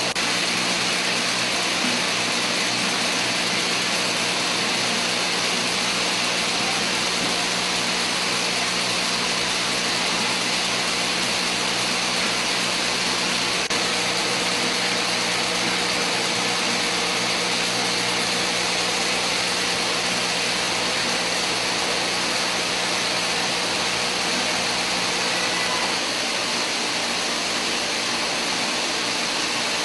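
Syringe assembly machinery running: a steady, even hiss with a faint low hum, unchanging, with no separate strokes or clicks.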